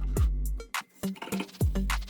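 Background music with an electronic beat: punchy kick drums, sharp snare hits and a deep bass line.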